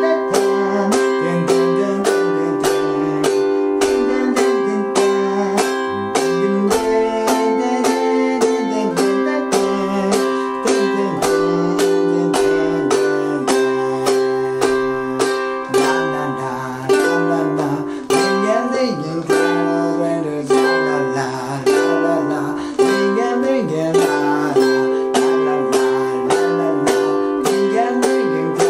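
A G-Labo thin-bodied ukulele strummed in a steady rhythm through a chord progression of F, C, G7 and C, with a singing voice joining near the end.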